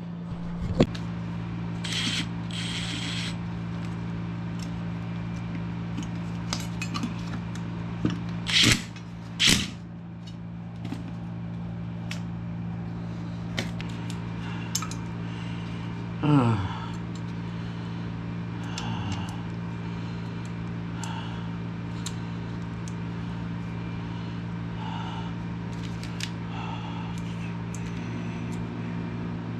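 Scattered metallic clicks, clinks and clanks of hand tools and parts being handled while working on a removed HVAC blower motor, with a few louder knocks and a short falling squeak, over a steady low hum.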